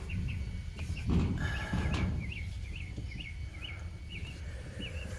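A small bird chirping over and over, short quick notes about two or three a second, over a low rumble of handling noise with a thump about a second in.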